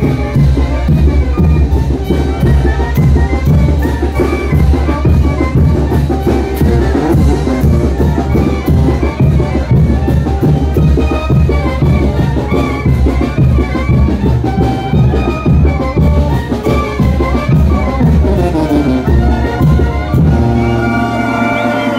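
Brass band playing a son de chinelo for the brinco, with a steady bass-drum beat under the melody. Near the end it gives way to different music.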